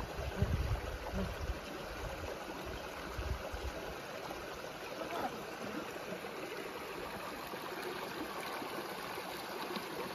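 A stream's water rushing steadily, with some low rumbles in the first few seconds.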